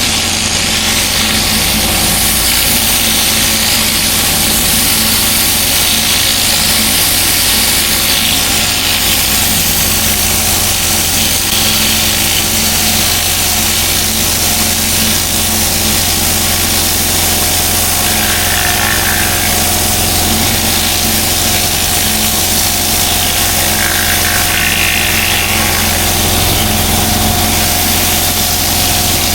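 Pressure washer engine running steadily under a continuous hiss of water spray on block paving.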